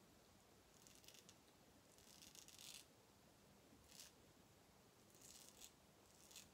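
Faint scratching of a razor blade cutting stubble through soap lather on the neck, in about five short strokes.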